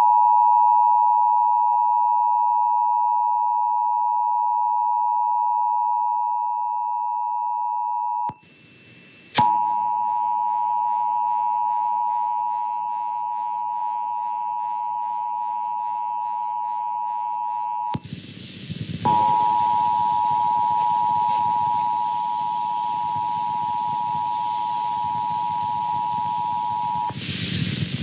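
Emergency Alert System attention signal: the steady two-tone alarm of 853 and 960 Hz sounded together, which marks the start of an EAS alert, here the Required Monthly Test. It sounds in three long stretches with short breaks about 8 and 18 seconds in, with faint background noise under the later stretches, and stops shortly before the end.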